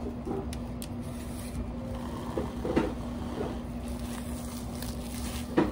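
PVC cling film being pulled over a metal tray of cookies and pressed down by gloved hands, rustling and crinkling, with a few short knocks. A steady low hum runs underneath.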